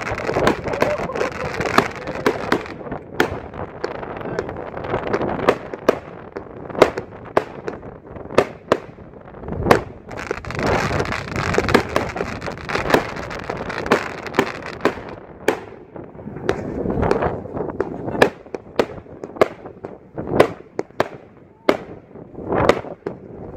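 Beware of Dog 49-shot firework cake firing shot after shot. Each shot is a sharp report, coming irregularly at about one or two a second, with a noisy hiss and crackle between them.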